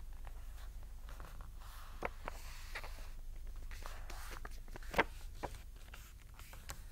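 Sheets of coloured paper rustling and creasing as hands fold corner to corner and press the fold flat on a table, with scattered soft clicks and one sharper tap about five seconds in, over a faint low hum.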